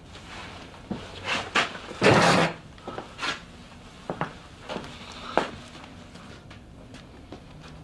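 Knocks, rubbing and scrapes of furniture being handled as a man gets up from behind a desk and moves his chair. The loudest is a short scrape about two seconds in, followed by a few lighter knocks.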